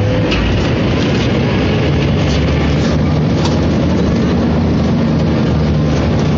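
Steady low drone of a river ferry's engine running, with a faint click or two over the top.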